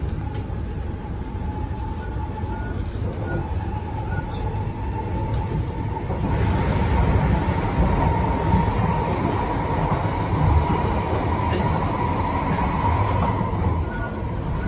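Cabin of an SMRT C151C (Kawasaki & CRRC Sifang) MRT train running between stations: a steady low rumble of wheels on track with a thin whine that rises slowly. About six seconds in, a louder rushing hiss joins and eases off again near the end.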